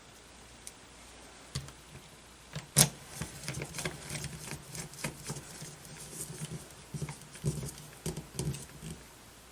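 Hands handling a plastic digital multimeter and its parts: a sharp snap about three seconds in, then a run of small clicks and rattles.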